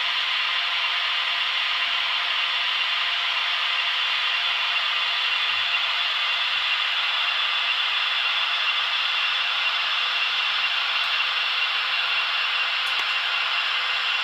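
Digital sound of model Swiss electric locomotives (Re 6/6 and Ae 6/6 with ESU sound decoders) hauling a heavy iron ore train: a steady rushing of traction motors and cooling blowers from the small onboard loudspeakers, with no bass.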